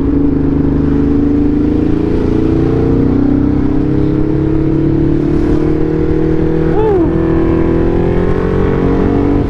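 Motorcycle engine running under way, slowly climbing in pitch as it accelerates, over steady wind rumble on the helmet microphone.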